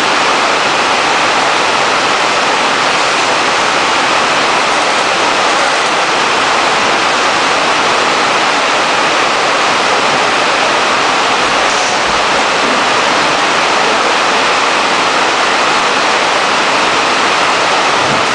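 Heavy rain falling, a steady loud hiss with no breaks.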